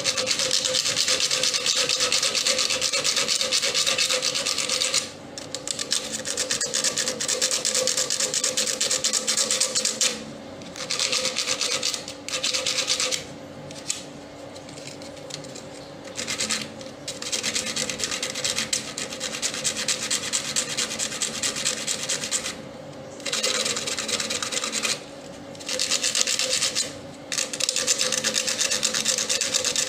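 Sandpaper rubbing quickly back and forth on a fridge's capillary tube, cleaning the tube so a joint will take. The scraping runs in long stretches broken by several short pauses.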